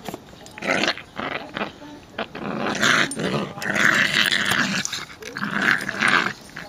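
Two small dogs, one a grey schnauzer, play-fighting and growling in rough bouts with short breaks. The growls are loudest and longest from about halfway through.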